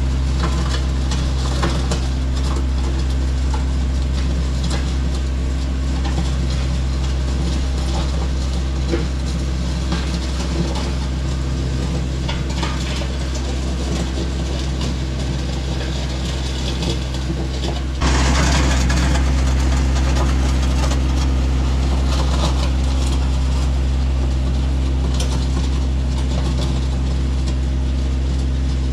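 Tractor engine running steadily while its bucket grades a gravel driveway, with rattling and clanking from the machine and gravel. About 18 seconds in the engine picks up and runs louder.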